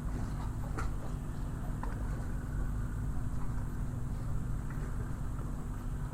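Harbour ambience: a steady low engine rumble with a constant hum, and a few faint clicks.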